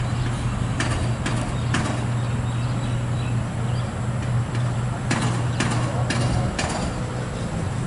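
Street ambience with a vehicle engine running in a steady low hum that fades out about six and a half seconds in. Over it come two runs of sharp clicks, three and then four, about half a second apart.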